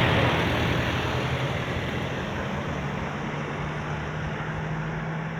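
A vehicle passing close by and fading away, with a steady low hum underneath.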